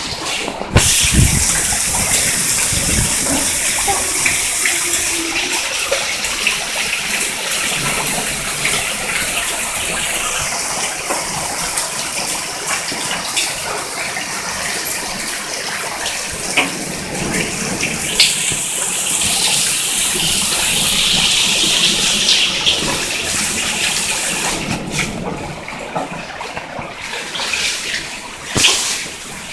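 Hail and heavy rain coming down hard: a dense, steady hiss of countless small impacts, with occasional sharper, louder hits standing out.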